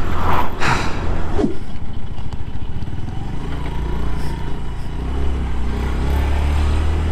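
Suzuki RV125 Van Van's single-cylinder four-stroke engine running at low speed as the bike slows and pulls onto a driveway, a steady low note. It is a freshly fitted replacement engine, running smoothly.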